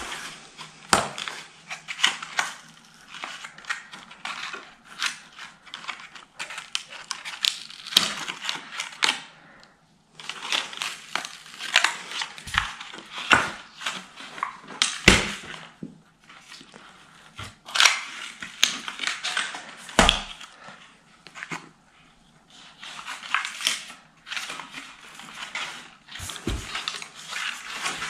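Cardboard honeycomb core of a hollow Ikea Kallax panel being crushed and torn apart by hand while a wooden edge strip is worked loose, in irregular crackling bursts with sharp snaps.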